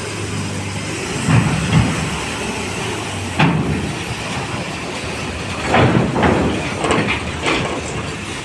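Mercedes-Benz coach bus engine running at low speed as it drives up a ferry's steel loading ramp, with a series of heavy clanks as it goes over the ramp, about seven in all.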